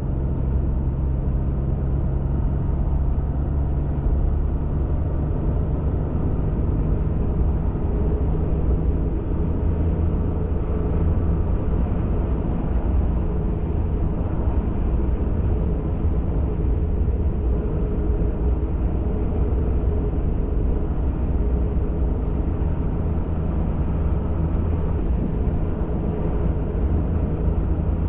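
Pickup truck driving at a steady pace on an off-road trail: a constant low drone of engine and tyre noise that does not rise or fall.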